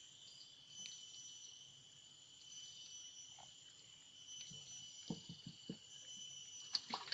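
Insects, crickets or similar, chirping in a steady high-pitched chorus, with a few soft knocks a little after five seconds in.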